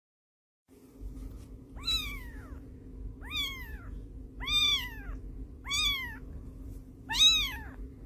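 A domestic cat meowing five times, about every second and a half, each meow rising and then falling in pitch, over a steady low hum.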